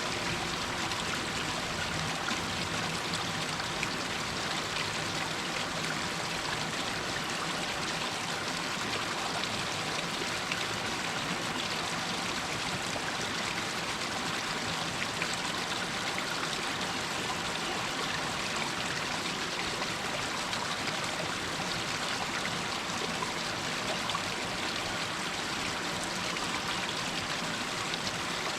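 A small stream running and trickling down over rocks, a steady, even rush of water.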